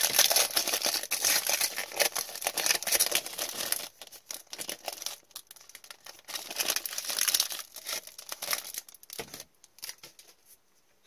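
A hockey card pack's wrapper being torn open and crinkled, dense and loudest for the first four seconds. After that come sparser, quieter rustles as the pack is handled.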